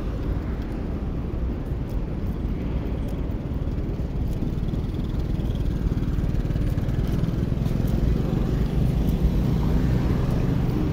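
City street traffic: car and motor scooter engines and tyre noise as a steady low rumble, growing a little louder in the second half.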